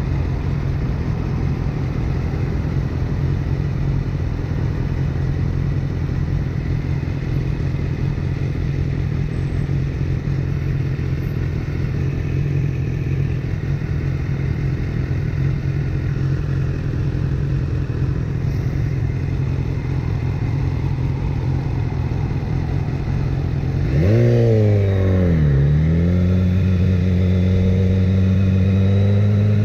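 BMW S1000R's inline four-cylinder engine idling steadily at a standstill. Near the end it revs up as the bike pulls away: the pitch climbs, drops back at a shift up a gear, then climbs slowly again.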